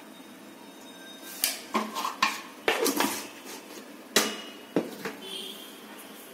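Cookware and utensils being handled at the stove: a short run of sharp clinks and knocks at irregular intervals, some with a brief metallic ring.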